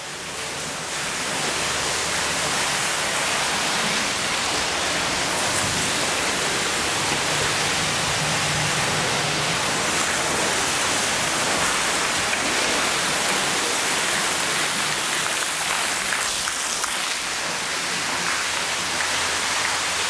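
Large multi-level architectural waterfall switched on at its full setting: a torrent of falling water that swells over the first couple of seconds, then rushes on steadily.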